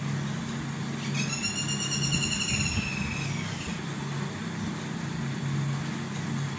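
Steady low mechanical hum like an idling engine, with one long high-pitched call over it, falling slightly, from about one second in to three and a half seconds.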